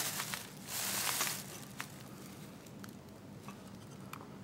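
Plastic sheeting crinkling as a porcelain bushing insulator is moved on it, in two short bursts within the first second and a half, then a few light clicks and taps.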